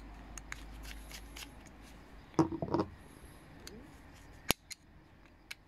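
Small metallic clicks and scrapes of a screwdriver tip working at a screw on a diaphragm carburetor body, with one sharp click about four and a half seconds in.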